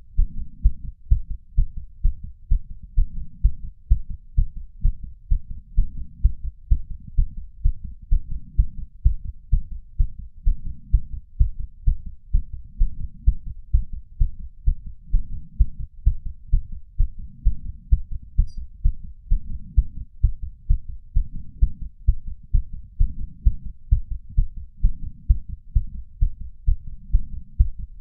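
Human heartbeat racing after exercise at roughly 130 beats a minute: a fast, even run of dull thumping beats. It is picked up close through a small ceramic bowl with a lapel mic.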